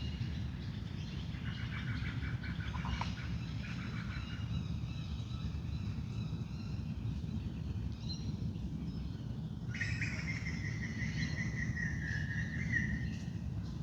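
Wild birds calling and singing in a dawn chorus, with several overlapping calls; about ten seconds in, one longer call glides slightly downward. A steady low rumble runs underneath.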